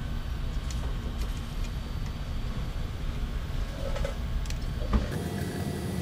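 Hands handling small hardware and tools, with a few faint clicks and a knock about five seconds in as something is set down, over a steady low rumble.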